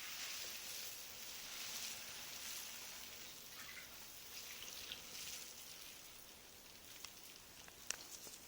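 Faint water sounds in a bathtub: soft sloshing and dripping of bath water, with a few small clicks near the end.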